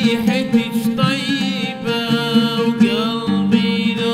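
A man singing an Arabic song with wavering, ornamented held notes, accompanied by a plucked oud.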